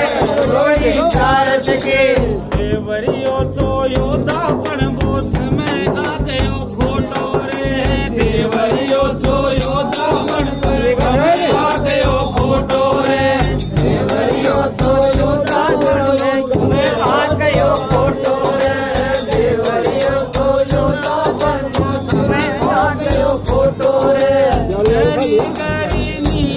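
Men singing a Holi dhamal folk song together, with a chang frame drum beating a steady rhythm under the voices.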